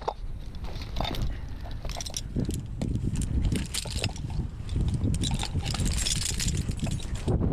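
Gusty wind buffeting the microphone in a rumble that rises and falls, with scattered short clicks and knocks throughout.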